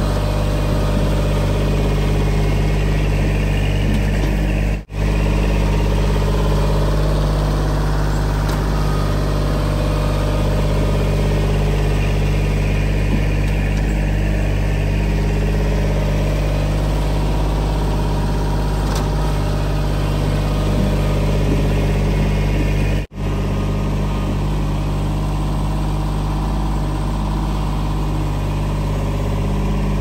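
Kubota L2501 compact tractor's three-cylinder diesel engine running steadily, with two momentary gaps about 5 and 23 seconds in.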